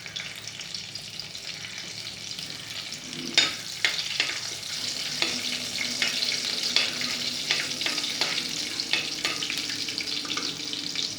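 Cumin seeds and curry leaves crackling and sizzling in hot oil in a pressure cooker, a tadka tempering, with frequent sharp pops, the loudest a few seconds in.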